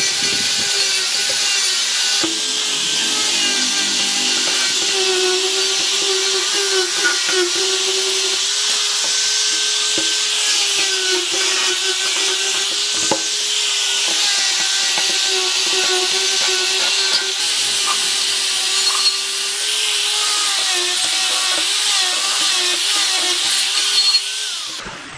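Electric angle grinder with an abrasive disc working on stainless steel: a steady high motor whine that dips slightly in pitch as the disc bears on the metal, over the hiss of abrasive on steel. It stops abruptly near the end.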